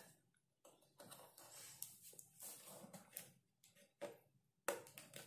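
Faint clicks, taps and rubbing of a plastic vegetable chopper being handled while its cover is pried at to open it, with a sharper plastic knock near the end.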